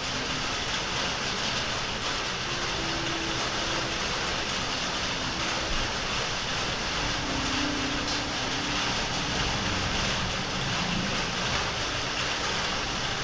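Steady rain sound, an even rushing hiss, with a few faint low notes drifting in here and there.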